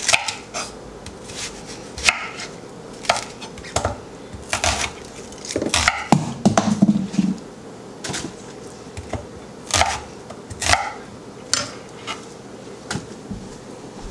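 Chef's knife cutting a whole onion on a wooden cutting board: irregular knocks and scrapes of the blade against the wood, with a busier cluster of knocks a little past the middle as onion pieces go into a blender jar.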